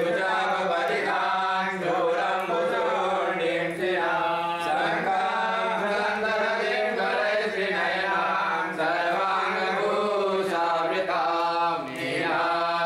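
Male voices chanting Vedic mantras in a continuous flowing recitation, with brief pauses for breath.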